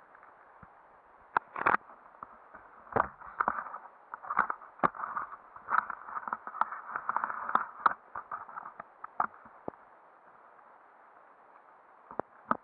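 Dry fallen leaves and twigs crackling and rustling under mountain bike tyres, with irregular clicks and knocks from the bikes. The noise thins out to a few scattered clicks near the end.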